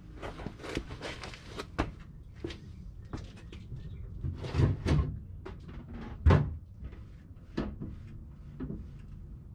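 Irregular knocks, clicks and clunks of hands working on the car and its parts, the heaviest thuds coming a little past halfway.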